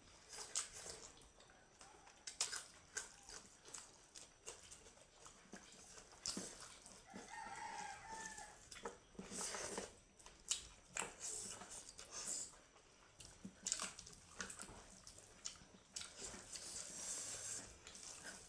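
Close-up eating sounds: chewing and wet mouth smacks on smoked pork, a string of short sharp clicks. About eight seconds in, a chicken calls once in the background.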